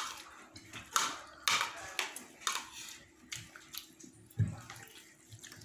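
Wet eating sounds of rice being mixed by hand and eaten: a run of short, wet smacking noises over the first three seconds, then a dull knock about four and a half seconds in.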